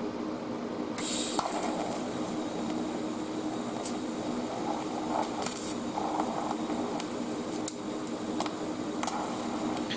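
TIG welding arc from a Parweld XDI 201 struck about a second in with a sudden hiss, then burning with a steady buzz and scattered sharp crackles as nickel filler rod is fed into a cast iron to steel joint. A steady low hum runs underneath.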